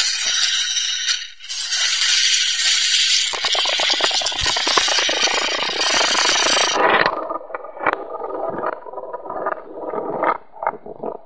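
Poker chips clattering under fingers on a table: a dense, fast rattle of chips for about seven seconds that stops abruptly, then scattered separate clicks of chips knocking together.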